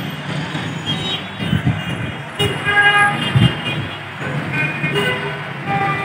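Street traffic running steadily, with car horns tooting a couple of times, first about two and a half seconds in and again near five seconds.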